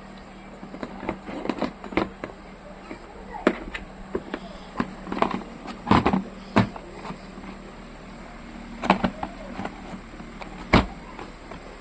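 Irregular clicks and knocks of objects being handled and set down, typical of a power drill and its packing being unboxed, loudest about six seconds in and again near the end.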